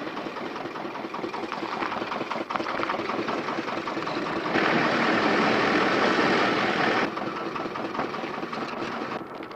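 A small engine or machine running steadily with a rapid clatter, louder for a couple of seconds in the middle.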